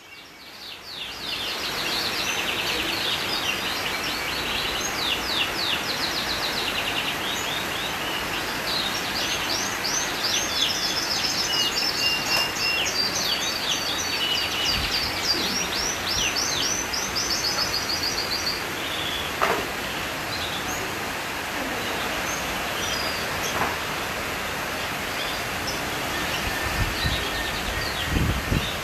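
A small songbird sings in quick runs of repeated high chirps for the first half or so, then gives only scattered chirps, over a steady outdoor hiss. A few low bumps come near the end.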